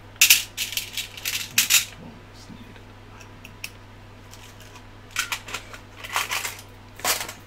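Small metal clicks and rattles of a hand screwdriver and its bits being handled while the bit is changed. The clatter comes in two bursts: one starting just after the beginning, the other about five seconds in.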